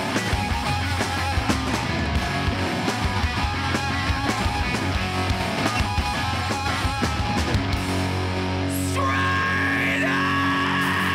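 Hardcore band playing live: distorted electric guitars, bass and drums pounding, then the band holds sustained chords from about three quarters of the way through. A yelled vocal comes in near the end.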